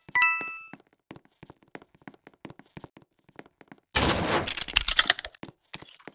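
A short ringing ding, then scattered light clicks and, about four seconds in, a second or so of dense, rapid clattering clicks.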